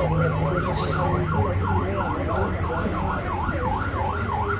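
Vehicle siren on a convoy of SUVs yelping, its pitch sweeping up and down about twice a second, over a steady low engine hum. A high beep repeats about three times a second.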